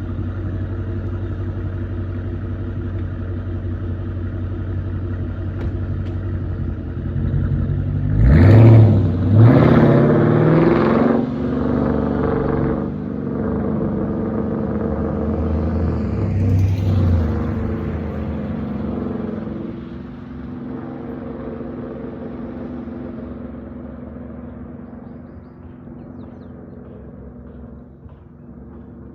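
Dodge Charger Daytona's V8 exhaust through Flowmaster Outlaw mufflers, running at low speed. About eight seconds in it revs up sharply twice in quick succession, with little crackles. It surges once more briefly around sixteen seconds, then grows steadily fainter.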